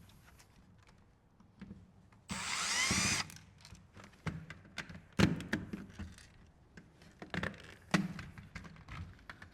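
Hard plastic parts of a car climate control panel being handled and pulled apart. There is a short grinding, scraping burst about two seconds in, then scattered sharp plastic clicks and knocks.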